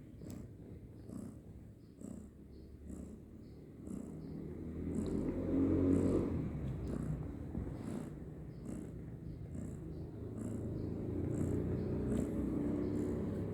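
Kitten purring close up: a low, pulsing rumble that grows louder about four seconds in.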